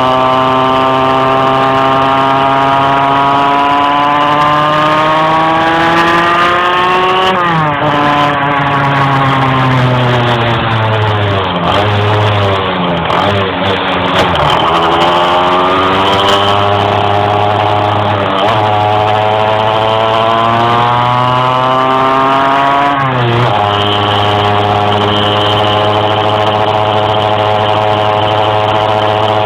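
Two-stroke 50cc engine of a Peugeot XP6 motorcycle, under way: its pitch climbs slowly for several seconds, drops suddenly about seven seconds in and sinks, then climbs slowly again and drops suddenly near the end before running steady. The engine is struggling to rise in revs.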